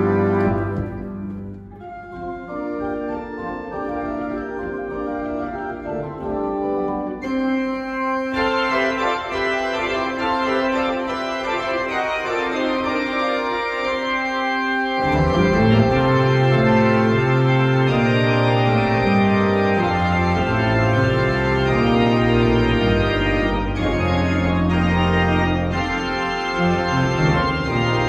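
Church organ playing on the manuals, with one middle note held for several seconds. About halfway through, the pedals come in with a deep bass line and the sound grows fuller and a little louder.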